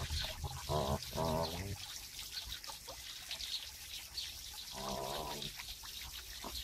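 Water trickling steadily into a garden pond. Three short wavering cries break in: two about a second in and one near five seconds.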